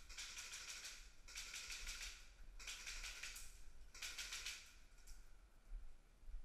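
Airsoft guns firing full-auto bursts: four rapid strings of sharp clicks, each about a second long.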